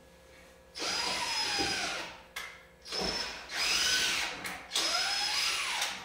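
Power drill run in three short bursts, each spinning up in pitch and winding down again.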